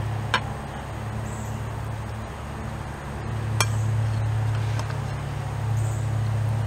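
A metal fork clinking against a dinner plate: two sharp clinks, the first near the start and the second a few seconds later, then a fainter tap. A steady low engine hum runs underneath and is the loudest sound.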